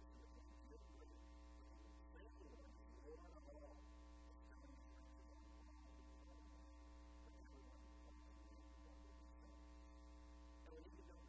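Near silence, with a steady electrical hum.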